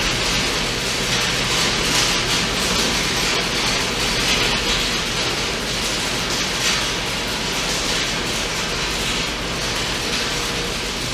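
Thunderstorm rain beating on a wooden nest box: a loud, steady hiss that swells and eases every few seconds.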